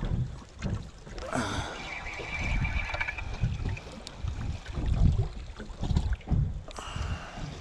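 Wind buffeting the microphone in irregular low gusts aboard a small boat at sea while a spinning reel is cranked in. A brief higher whine comes from about one and a half to three seconds in.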